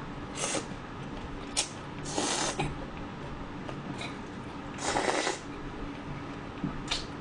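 Cold noodles (yeolmu naengmyeon) slurped in from chopsticks: three noisy slurps of about half a second each, the loudest about five seconds in, with a couple of short clicks between.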